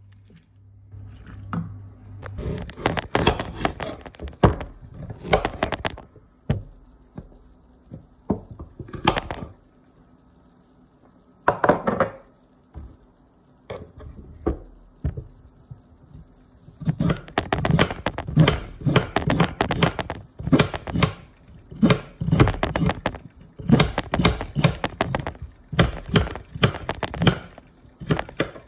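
A kitchen knife chopping vegetables on a cutting board. The strikes come in scattered bunches at first, then after a pause settle into a steady run of quick chops through the second half.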